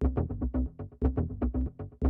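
Eurorack modular patch playing a fast electronic percussion pattern: drum samples from a Rossum Assimil8or sampler excited through a Mutable Instruments Rings resonator, so each hit rings with a short pitched tone. About eight hits a second, with a louder accented hit about once a second.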